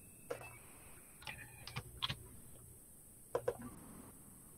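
A few faint, scattered clicks and keystrokes on a computer keyboard and mouse as text is copied and pasted in a code editor, some single and one quick double tap a little over three seconds in.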